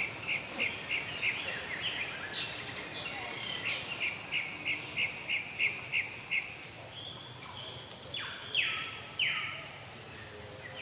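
High-pitched animal chirps in a regular series of about three a second, then two longer, harsher falling squeals near the end.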